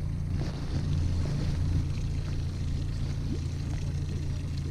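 Outboard motor of a small fishing boat running steadily, a low even hum, with light water and wind noise over it.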